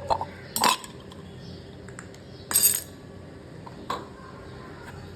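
Cutlery and crockery clinking while coffee is made: four separate sharp clinks, the loudest and longest about two and a half seconds in.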